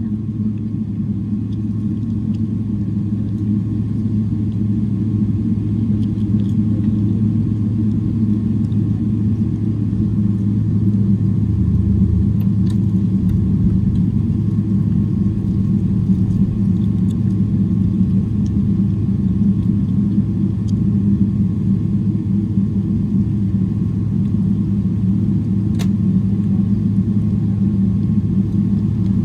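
Steady low rumble of a Boeing 777-300ER's cabin on the ground with its GE90 engines running, heard from inside the cabin. It grows a little louder over the first several seconds, with a few faint clicks.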